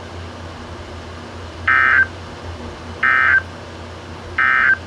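NOAA Weather Radio EAS end-of-message data tones: three short, loud digital screech bursts, evenly spaced about a second and a half apart, signalling the end of the alert message.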